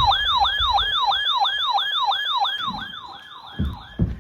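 Electronic yelp-style siren alert tone, a pitch falling quickly over and over about four times a second, fading out near the end. It is the alert that heralds a special marine warning broadcast.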